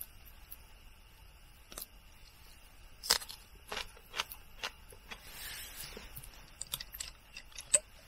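Crisp crunches of a raw green onion being bitten and chewed, several sharp crunches with the loudest about three seconds in. A brief rustle follows, and a sharp click comes near the end.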